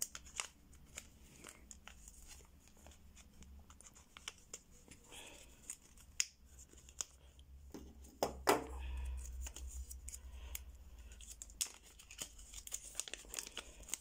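A small clear plastic bag crinkling and rustling as it is handled and opened, with scattered small clicks and a few louder crackles.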